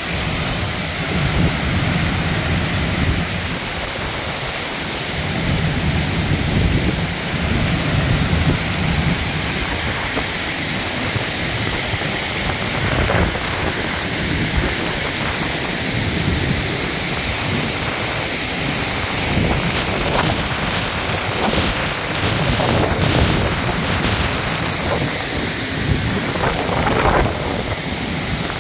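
Waterfall: a loud, steady rush of falling water, with an uneven low rumble underneath.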